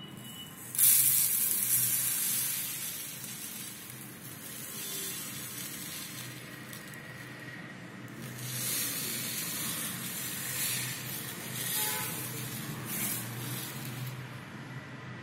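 Black cumin (nigella) seeds pouring out of a glass jar onto a plate: a hissing rush of tiny seeds that starts suddenly about a second in and tapers off, with softer pours again later.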